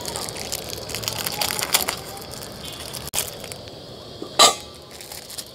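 Bars of soap being set down and pushed around in an empty stainless steel pot: scraping and small knocks of soap on steel, with one sharp knock about four and a half seconds in.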